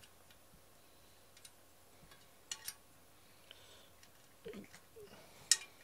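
A few sharp clicks and light metal taps, the loudest near the end, as the joint between a rod and the round tube frame of a metal cat hammock stand is handled during assembly.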